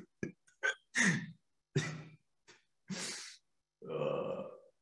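A man sighing and breathing out heavily several times in short, separate breaths, ending about four seconds in with a longer voiced sigh. The sighs sound exasperated.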